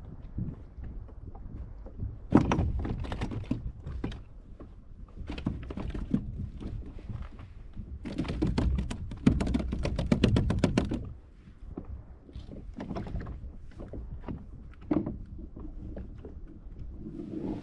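Irregular knocks and clicks of fishing gear being handled on a plastic sit-on-top kayak, with a fast run of clicks about 8 to 11 seconds in, over a steady low rumble.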